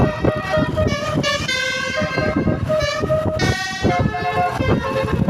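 Telolet horn of an Indonesian intercity bus: a multi-tone air horn playing a tune of short held notes that step up and down in pitch, over a low rumble.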